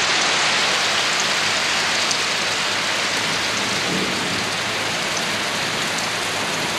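Steady rain falling: an even hiss with the odd single drop standing out.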